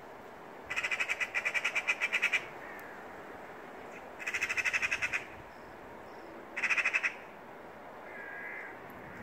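Eurasian magpies giving their rattling alarm chatter at a cat: three bursts of rapid harsh notes, about eight a second, the first and longest lasting nearly two seconds. A fainter, softer call follows near the end.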